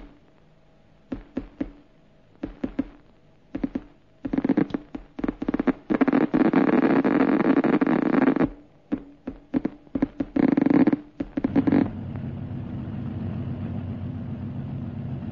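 An engine sputtering in irregular pops, picking up into a steady run for a couple of seconds near the middle, then popping again. About twelve seconds in it gives way to a steady engine drone with a low hum.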